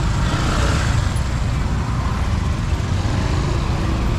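Steady road traffic noise of a busy street: an even rumble of passing vehicles with hiss above it.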